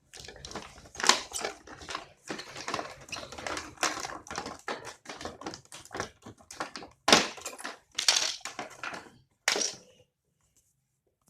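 Play-Doh set's packaging being handled and opened: irregular rustling and crackling with sharper crackles, stopping about ten seconds in.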